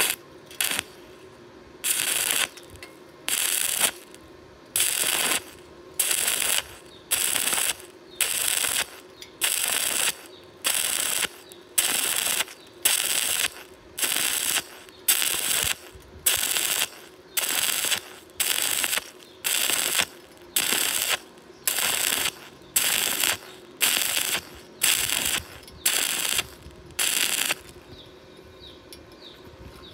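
Stick-welding arc crackling in about thirty short bursts, roughly one every 0.8 s, as the coated electrode is struck and pulled away again and again (a stitch or whip technique) to lay a bead joining a steel bar to thin galvanized steel. The crackling stops a couple of seconds before the end.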